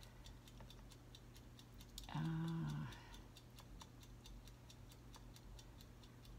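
Faint, steady ticking of a timer, a few even ticks a second, with a woman's short hummed "mm" about two seconds in.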